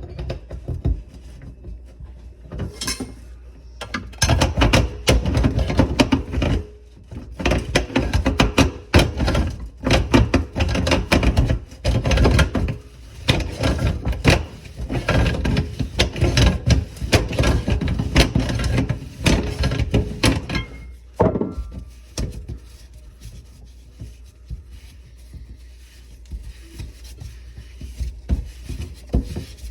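Dense clatter of knocks, clicks and rubbing from objects being handled, busiest from about four seconds in until about twenty-one seconds, then dropping to occasional soft rubbing and taps.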